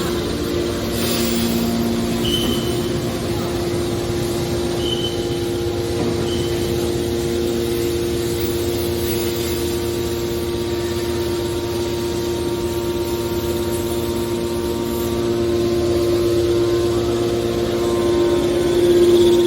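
Small aluminum can baler's motor running with a steady hum, swelling slightly just before the end.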